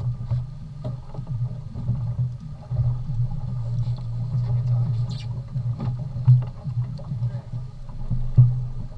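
Fishing boat's engine running steadily with a low drone, with scattered knocks, two of them louder, in the second half.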